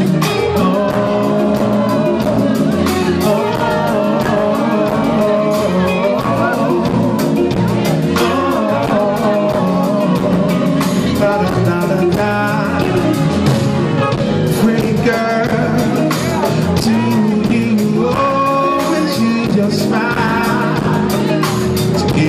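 A live band playing a song, with a voice singing over it.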